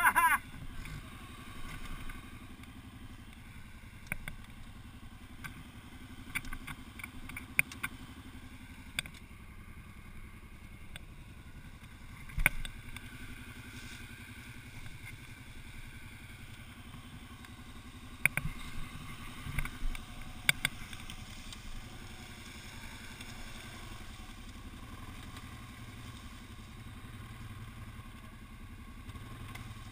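ATV engine idling steadily in a low rumble, broken by scattered sharp knocks and clatters, the loudest about twelve and eighteen seconds in.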